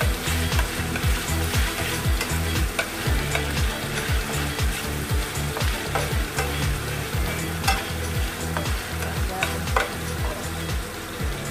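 Diced chicken sizzling in oil in a non-stick frying pan, stirred with a slotted spatula that scrapes and clicks against the pan now and then, over a low rumble.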